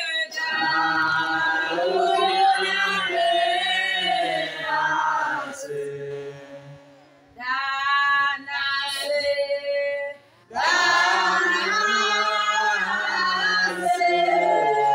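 Unaccompanied group singing, mostly women's voices, with a short lull about halfway through.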